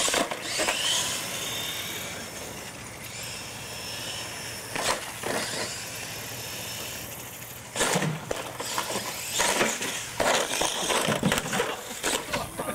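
A radio-controlled monster truck running on concrete: bursts of motor and tyre noise, with clattering knocks as it lands and tumbles off jumps, most of them in the last five seconds.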